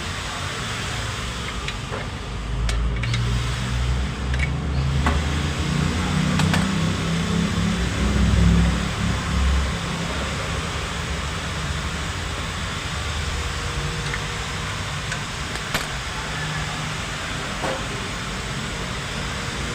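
Steady motor vehicle noise with a low rumble that grows louder for several seconds from about two seconds in, then settles, with a few light clicks.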